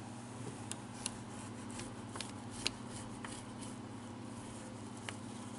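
Serrated tracing wheel rolled with pressure over dressmaker's tracing paper on fabric: faint, irregular clicks and paper rustling over a low steady hum.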